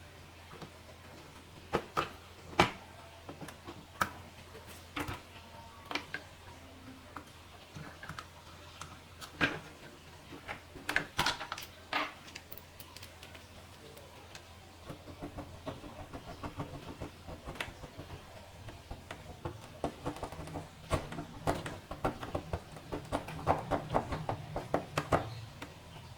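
Scattered sharp clicks and taps from handling laptop parts, becoming a denser run of small clicks and rattles from about fifteen seconds in, over a steady low hum.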